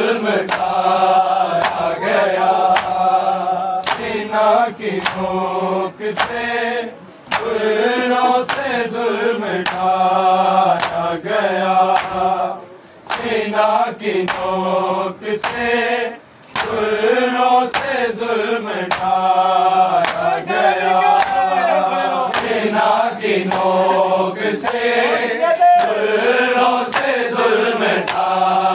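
Male voices chanting a noha, a Shia lament, to a steady beat of sharp, evenly spaced strikes, with short pauses for breath between lines.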